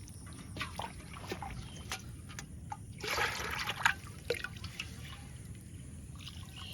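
Water splashing and dripping in short irregular bursts, with a louder stretch of splashing about three seconds in.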